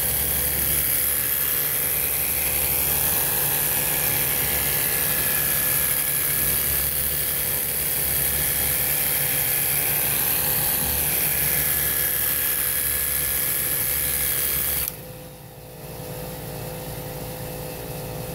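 Worx Hydroshot cordless pressure washer spraying water over an engine bay: a steady motor whine under a loud hiss of spray. It cuts off suddenly near the end, leaving a quieter steady background hum.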